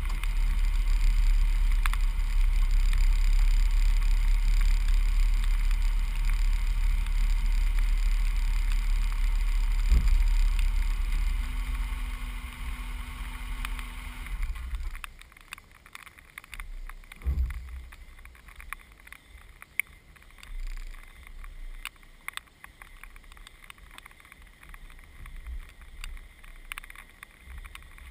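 Truck engine running with a steady low rumble that dies away about twelve to fifteen seconds in. The lights go dark at the same time, which fits the engine being shut off. Faint scattered clicks follow.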